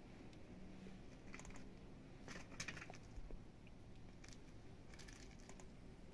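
Near silence: faint outdoor background with a few brief, faint high-pitched sounds about a second and a half, two and a half and five seconds in.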